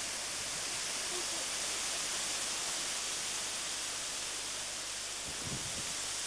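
Steady, even hiss with no change in level, and a brief low thump about five and a half seconds in.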